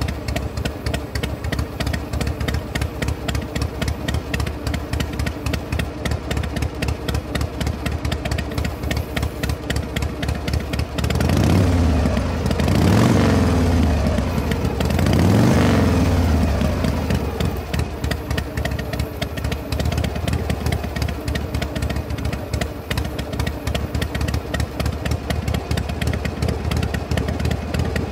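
Engine idling with a steady rapid pulse, revved up and let back down twice about halfway through.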